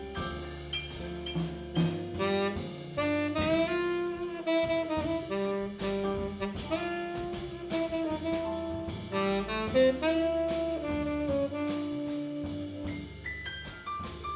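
Jazz quartet playing: a saxophone carries a flowing melody of held and sliding notes over keyboards, bass and drums.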